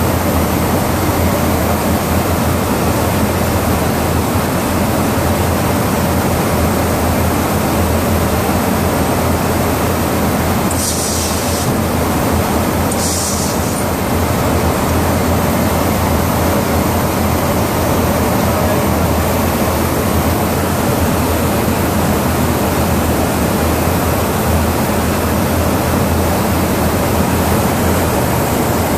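Steady, loud in-flight noise of airflow and engines inside an aerial refueling tanker's boom operator pod, with a strong low hum underneath. Twice, about a third of the way in, a short high hiss rises over it.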